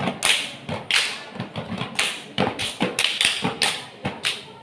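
A group of step dancers beating out a rhythm with their bodies: stamps on concrete with hand claps and slaps, about three to four sharp strikes a second in an uneven pattern.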